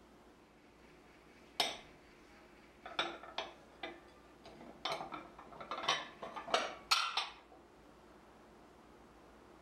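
Kwangjuyo glazed ceramic plates clinking as they are set down and stacked on one another. There is one clink about a second and a half in, then a run of quick clinks and knocks from about three to seven seconds in.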